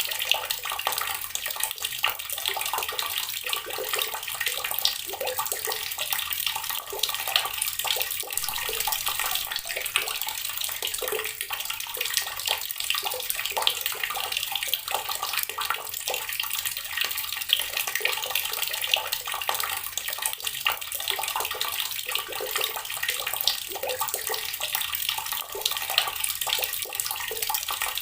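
Water running steadily from a tap and splashing into a basin below, with many small irregular splashes.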